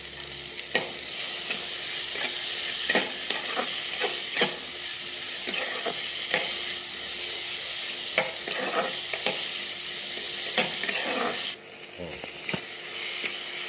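Boiled potatoes and peas sizzling in oil in an aluminium kadai while a metal spatula stirs them, scraping and clinking against the pan at irregular moments. The sizzle dips briefly near the end.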